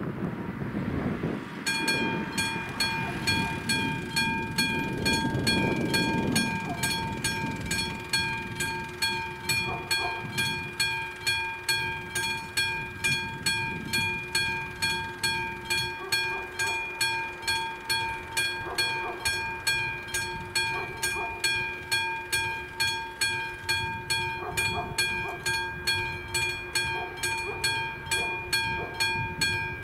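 Level-crossing warning bell on an AŽD 71 crossing signal starting a couple of seconds in and ringing with steady, evenly spaced metallic strikes. It is the crossing's warning that a train is approaching.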